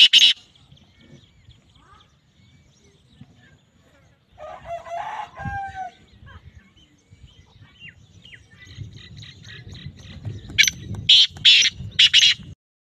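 Black francolin calling: the tail of a loud call of short, high notes right at the start, then near the end a faint run of notes followed by a full loud series of about six short notes. A quieter, lower sound with gliding tones comes about five seconds in.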